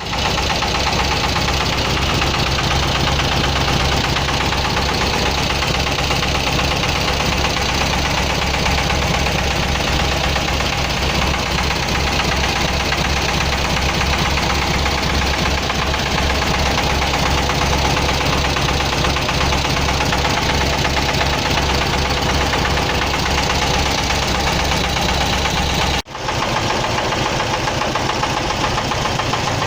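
Volkswagen Beetle 1600's air-cooled flat-four engine running steadily with a rattle. About 26 seconds in the sound breaks off for an instant and comes back with less low rumble.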